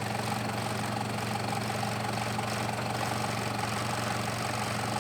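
Off-road truck engine running steadily at low revs, a constant drone while crawling slowly over rocks.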